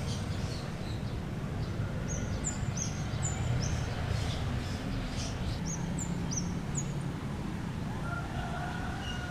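A small bird chirping, short high chirps repeating about twice a second, over a steady low rumble of outdoor background noise.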